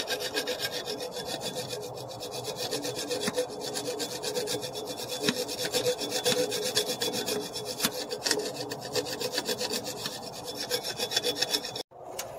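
Hacksaw blade sawing through a car's metal power steering line in quick, even back-and-forth strokes. The sawing stops abruptly near the end.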